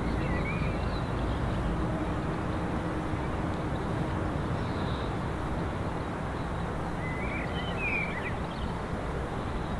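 Steam locomotive approaching from a distance, heard as a steady rumble with no distinct exhaust beats. Birds chirp briefly near the start and again about seven to eight seconds in.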